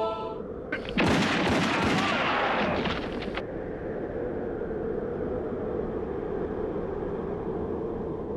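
Gunfire: a rapid string of handgun shots that starts suddenly about a second in and stops after about two and a half seconds, followed by a lower steady hiss.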